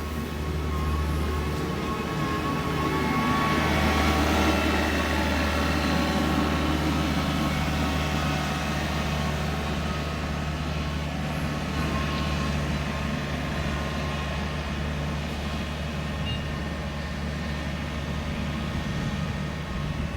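Excavator's diesel engine running with a steady low drone, growing louder a couple of seconds in and then holding steady as the machine works.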